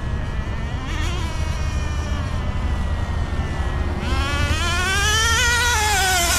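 Traxxas Rustler's 2.5 nitro engine running, a small two-stroke glow engine, holding a fairly steady speed with a brief rise about a second in, then revving up and back down near the end. The engine is still breaking in, with its mixture just richened an eighth of a turn, on a glow plug the owner suspects is spent.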